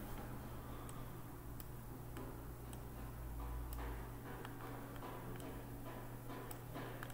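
Computer mouse clicking, several separate clicks at irregular intervals as a path is edited, over a steady low hum.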